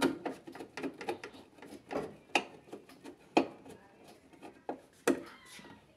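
Irregular clicks, knocks and scraping from plastic and metal parts being handled inside an open washer dryer, with sharper knocks about two and a half, three and a half and five seconds in.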